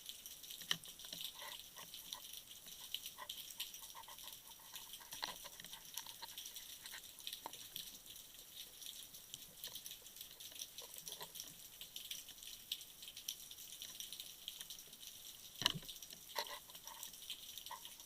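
Underwater ambience picked up by a dive camera: a faint, steady high crackle with scattered sharp clicks, the loudest about a second in and again near the end.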